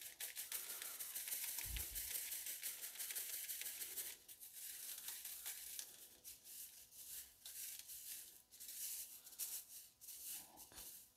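Gravel pay dirt rattling and grinding against a wire-mesh classifier screen as a gloved hand stirs it, sifting the fines through: a continuous gritty rattle for the first few seconds, then in shorter bursts.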